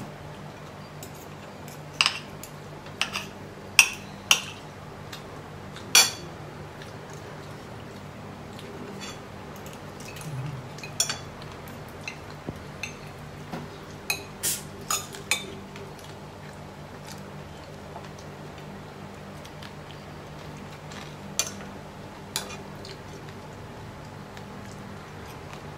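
Spoon and fork clinking and scraping on a plate while eating, with a dozen or so short sharp clinks scattered irregularly, over a steady low hum.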